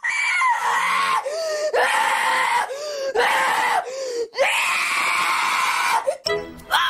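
A boy screaming: several long, shrill screams in a row with short breaks between them, the last one the longest.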